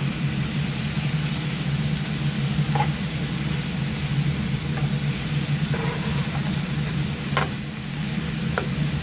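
Thin-sliced pork belly sizzling in a frying pan over a steady low hum, with a few short clicks against the pan.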